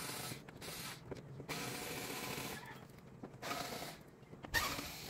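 Phillips screwdriver backing screws out of the plastic front panel of a Suzuki Skydrive 125 scooter: several short bursts of scratchy, clicking noise with brief pauses between.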